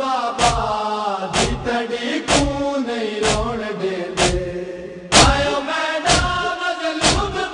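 A group of men chanting a Punjabi noha together, a mourning lament without instruments, kept in time by sharp chest-beating (matam) strokes about once a second. The loudest stroke comes about five seconds in.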